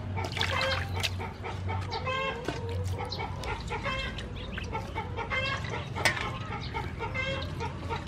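Chickens clucking in short calls that recur every second or two, with a sharp knock about six seconds in.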